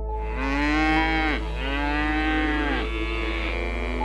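Buffalo lowing: two long, drawn-out moo-like calls one after the other, then a fainter, shorter call near the end.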